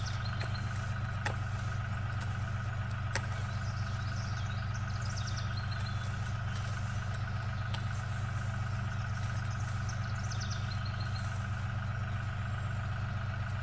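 A steady motor hum at an even pitch, with a few faint high chirps over it.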